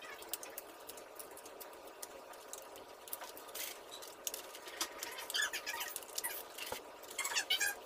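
Handling noise from a 3D puzzle model being gripped and turned in the hands: small clicks and rubbing. From about five seconds in there is a run of short high squeaks.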